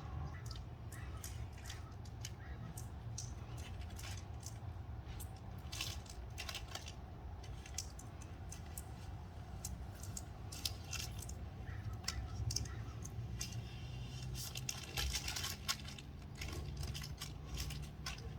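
Small metallic clicks, clinks and rattles of hardware and hand tools being handled as a sign is fitted, coming irregularly and more often in the second half, over a steady low rumble.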